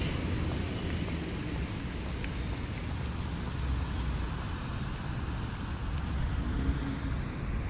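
Steady low rumble of distant road traffic, an even urban background hum with no single event standing out.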